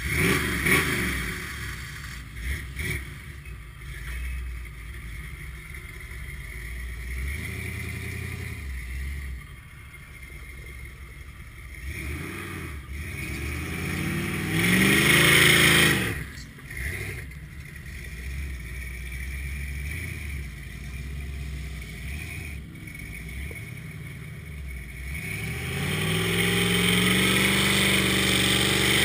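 Lifted Ford pickup's engine revving in a deep mud pit on big Swamper mud tires, with a loud rev that rises and falls about halfway through. Near the end the engine climbs to a sustained high rev as the tires spin and fling mud.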